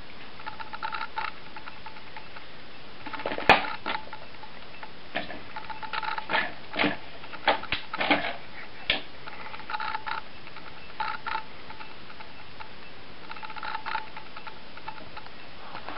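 A plastic ball rattling round the track of a circular cat track toy as a kitten bats at it: short runs of quick clicking with a faint ringing tone, and sharp knocks of paw and ball against the plastic, the loudest about three and a half seconds in.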